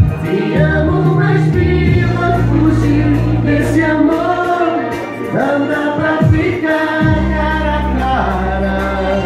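A man and a woman singing a duet into microphones, amplified through PA speakers over a backing track with sustained bass notes.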